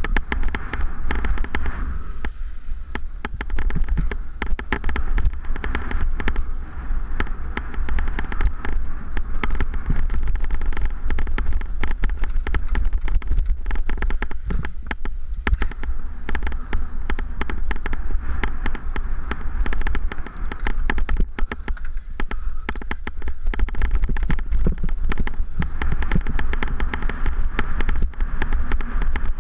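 Mountain bike rattling and clattering over a rough, dry dirt trail at speed, a dense crackle of small knocks, with wind buffeting the onboard camera's microphone as a constant low rumble.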